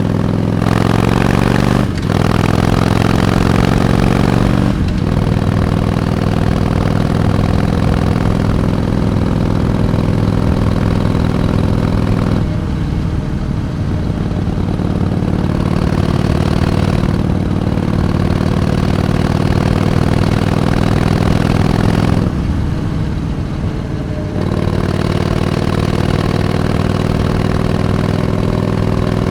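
Harley-Davidson Iron 883's air-cooled V-twin engine running under way. Its pitch climbs and drops back sharply twice in the first five seconds, then it runs steadily, easing off briefly a few times.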